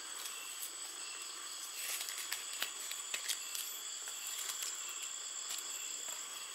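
Faint rustling and small crackles of boiled forest leaves being peeled off a hot steamed rice cake, over a steady high-pitched hiss.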